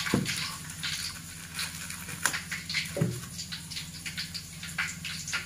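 Kitchen knife slicing a block of tempe on a wooden cutting board, with a few knocks of the blade on the board (near the start, and twice around the middle). Light, irregular crackling runs underneath.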